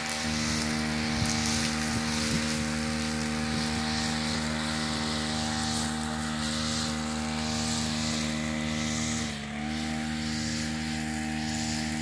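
Two-stroke brush cutter engine running at steady high revs, its pitch and level dipping briefly about nine and a half seconds in, then picking up again.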